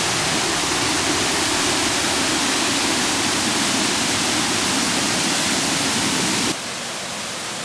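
Waterfall: a steady rush of falling water that drops suddenly to a quieter level about six and a half seconds in.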